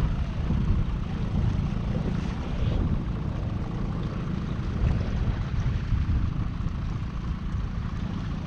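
Wind buffeting the microphone on open water: a steady low rumble that never drops out.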